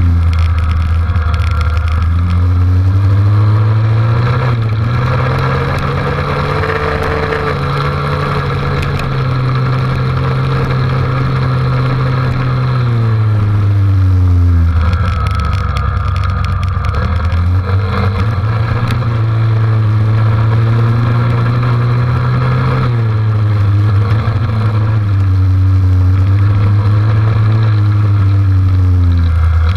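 Dirt bike engine running under varying throttle, its pitch rising and falling as the rider speeds up and eases off, with a clear drop in revs about halfway through before it picks up again.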